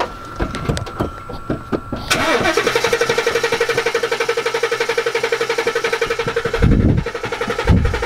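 Starter cranking the Whipple-supercharged 2016 Mustang GT's 5.0 V8 in a steady, even rhythm for about six seconds without it catching, a sign of the dead fuel pump. Two heavy thumps come near the end.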